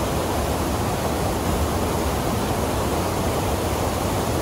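A small waterfall and river rapids pouring into a rock pool: a steady rush of white water.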